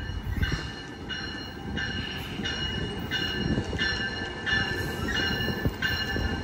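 Warning bell of an arriving Amtrak Capitol Corridor train ringing at an even pace, about one and a half rings a second, over the low rumble of the train rolling in.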